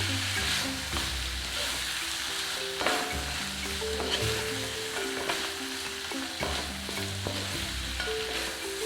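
Chicken pieces sizzling as they fry dry in a pan, stirred with a spatula that knocks and scrapes now and then, under background music with held notes and a bass line.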